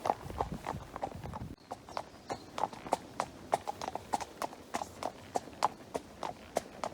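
Horses walking on a hard road, their hooves clip-clopping in a steady run of sharp hoofbeats, several a second. A low rumble lies under the hoofbeats for the first second and a half, then stops.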